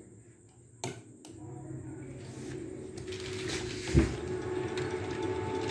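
Two sharp clicks about a second in, then the steady mechanical hum of the egg incubator growing louder, with one heavy thump about four seconds in.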